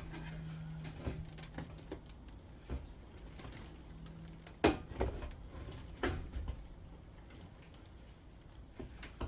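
Scattered sharp metal clicks and knocks from hand-working a small part out of a scrapped induction hob, the loudest about halfway through. A low steady hum runs under the first half and stops.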